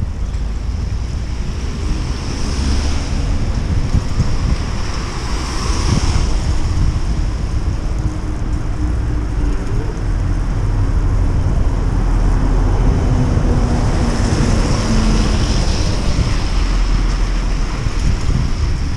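Wind rushing over the microphone of a camera on a moving bicycle, a heavy steady low rush, with a higher hiss of tyres on wet pavement that swells and fades a few times.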